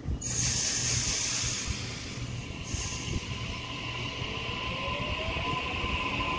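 Sydney Trains Waratah A-set electric double-deck train moving off. A sudden burst of air hiss comes at the start and a shorter one about two and a half seconds in, then the traction motors give a rising whine over a steady high tone and a low running rumble.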